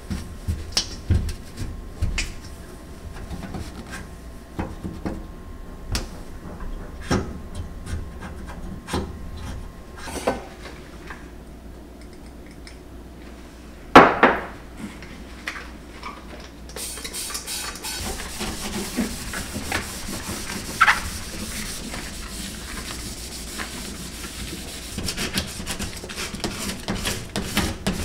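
Towel rubbing and scrubbing a stainless steel gas hob, with scattered small knocks as the burner parts are handled. About halfway through there is one loud metallic clank at a stainless bowl, and a steady hiss sits behind the wiping in the second half.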